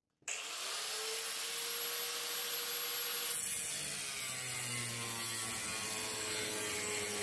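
Electric power tool spinning up just after the start, then running steadily as it cuts a steel plate to shape. After about three seconds the sound grows rougher, with a lower tone added as the cut bites.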